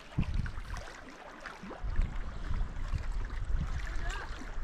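Wind buffeting the microphone at a lake shore, a low rumble in irregular gusts that picks up about two seconds in, over the faint wash of small waves on the water.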